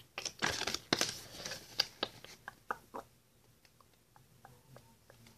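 Paper rustling and crinkling as a printed paper checklist strip is handled and folded. The rustles come thick for the first three seconds, then only a few faint ticks.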